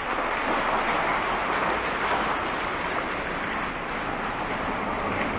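Steady rushing hiss of a bicycle's tyres rolling over wet, puddled pavement.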